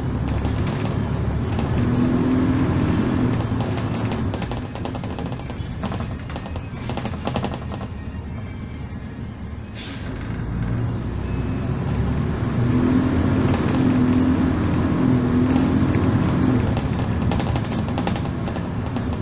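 Volvo Super Olympian double-decker bus under way, heard from inside the cabin: the engine pulls harder about two seconds in and again about twelve seconds in, over a steady rumble, with rattles from the bus body. A brief sharp hiss about ten seconds in.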